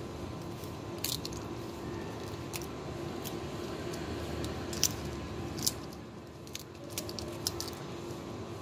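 Kittens chewing shrimp shells: irregular sharp crunches, about eight in all, over a steady background hum.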